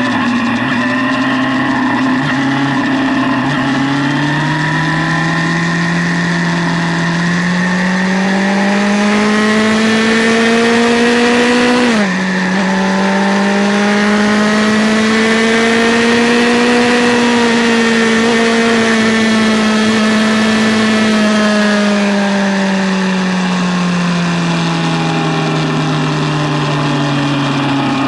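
A 2008 Yamaha FZ6's 600 cc inline-four pulling hard under throttle, with wind noise rushing past: the engine pitch climbs for several seconds, drops sharply at an upshift about twelve seconds in, climbs again, then falls slowly as the rider rolls off.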